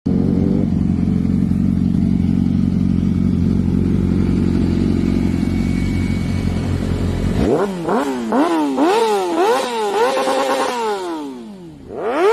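Yamaha YZF-R6 inline-four sport bike: a steady low engine rumble for about seven seconds, then the engine revs hard through a quick string of rising pitches, each cut off by an upshift, as it accelerates. Near the end the pitch falls away in one long glide and the sound fades.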